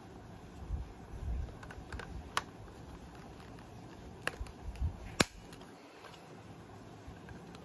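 A handful of sharp clicks from handling a manual toy BB gun: a pair about two seconds in, one about four seconds in and the loudest about five seconds in, with soft handling bumps between.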